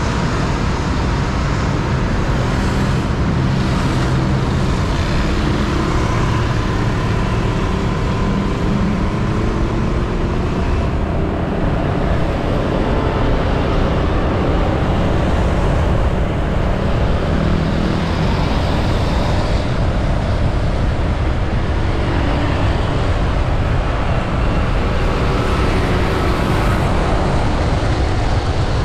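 Steady road noise heard from a moving motorcycle taxi in city traffic: the motorcycle's engine and the surrounding cars and buses blend into a dense, unbroken rush.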